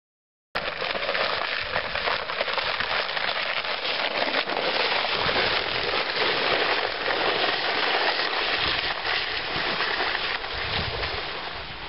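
Dense, steady crackling patter of ice pellets falling on crusted snow during an ice storm. It starts abruptly and eases slightly near the end.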